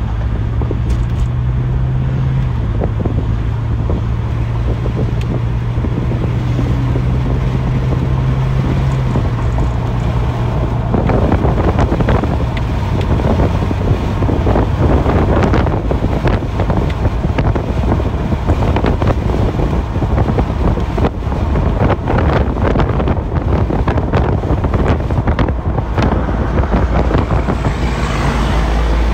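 A 1998 Corvette's 5.7-litre V8 drones steadily at cruising speed, heard from inside the car with road and wind noise. The wind rush grows louder about a third of the way through.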